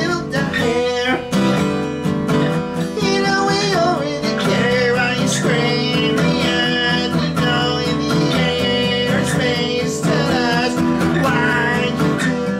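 Background music: a guitar-led song, its instrumental part running steadily with a bending lead melody over it.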